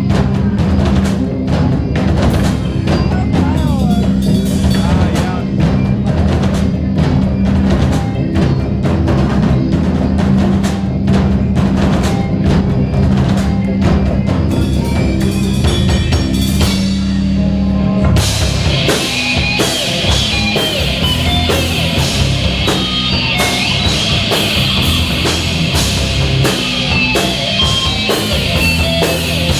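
Live heavy rock band playing: drum kit hits over held bass guitar notes, until about two-thirds of the way through, when the band shifts into a loud section led by distorted electric guitar.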